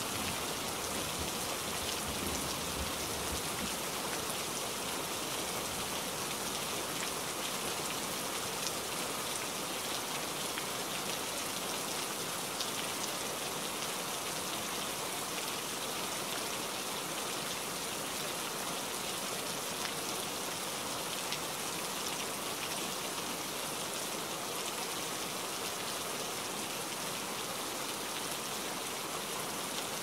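Steady rain falling on tree foliage: an even hiss with faint scattered drip ticks. The tail of a low thunder rumble fades out in the first few seconds.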